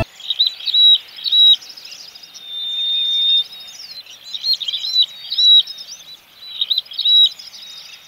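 Ashy-crowned sparrow-lark calling: three bursts of quick, clipped chirping notes, with one long, level whistle held for about a second between the first two bursts.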